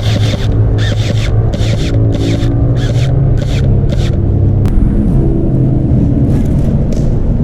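Footsteps crunching over dry ground cover, about two a second, stopping about four seconds in, over a steady rumble of wind on the microphone; a single sharp click follows shortly after.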